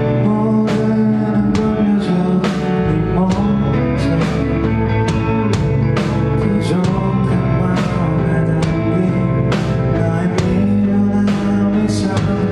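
Live rock band playing: guitar and bass over a drum kit keeping a steady beat of about two hits a second.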